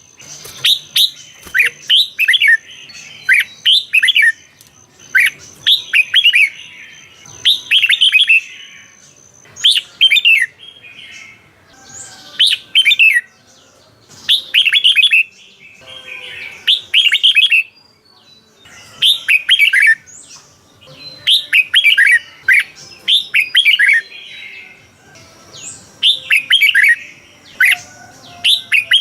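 Red-whiskered bulbul singing: short phrases of quick, bright warbled notes, repeated every second or two with brief pauses between.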